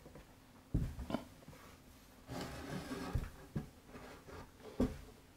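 A large handheld board being lifted and propped against a wall: several dull knocks and thumps as it bumps into place, with a stretch of rubbing and scraping about halfway through.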